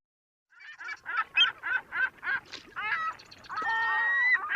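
Seagulls squawking: a quick run of short calls starting about half a second in, then one longer drawn-out call near the end.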